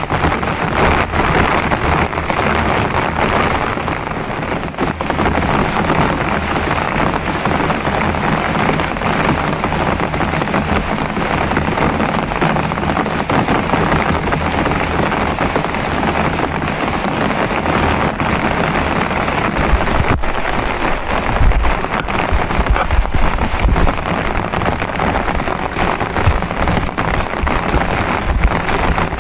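Heavy rain pouring steadily, with low rumbling gusts in the second half.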